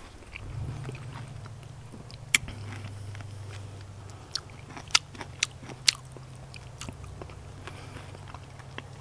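A person chewing a juicy mandarin segment, with sharp wet clicks of the mouth, one a couple of seconds in and several more around the middle. A low steady hum runs underneath.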